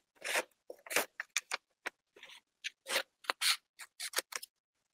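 Scissors cutting printed paper cards: a quick, irregular run of short snips and paper rustles.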